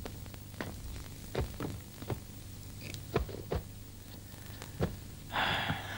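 Scattered soft footsteps and light knocks on a floor as two people walk to their places and sit down, with a short rustle, like robes settling, about five seconds in.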